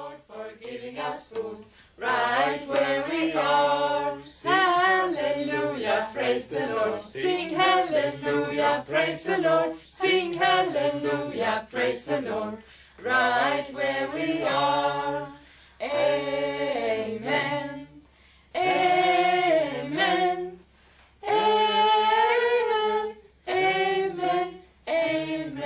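A few voices singing unaccompanied, women's voices to the fore, in phrases of one to five seconds with short breaks between them.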